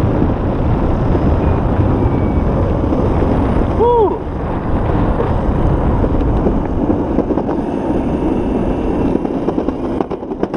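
Electric skateboard riding fast on a concrete path: a steady rush of wind on the microphone and wheels rolling on pavement. A brief pitched sound comes about four seconds in, and a few sharp clicks near the end as the wheels run onto a bridge deck.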